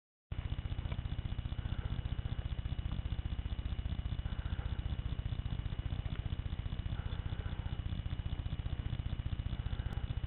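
An engine idling, a steady fast even low throb.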